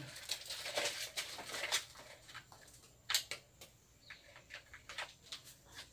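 Faint scattered clicks and light knocks, with rustling between them, as an electric cord and plug are handled; the jigsaw is not yet running.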